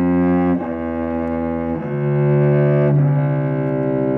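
Cello bowed slowly, playing single sustained notes that change about once a second, stepping back down a five-note sequence. The last note is held and fades.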